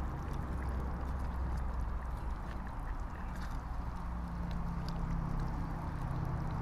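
Pot of red curry with coconut milk simmering and being stirred: a steady bubbling hiss over a low hum, with a few light clicks of the spoon against the pot.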